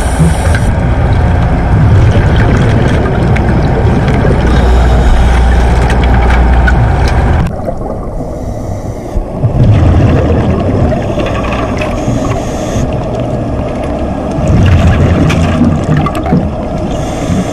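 Underwater sound from a diver's camera: a loud, steady low rumble that drops away about seven seconds in, with bursts of bubbling hiss every few seconds, typical of a scuba regulator's exhaust bubbles.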